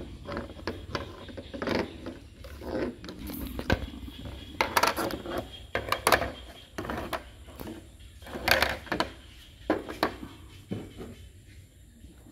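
Plastic toy parts being handled: hollow plastic toy wheels pulled off metal axles and set down on a plastic table, with irregular clicks and clattering knocks, the loudest about five, six and eight and a half seconds in.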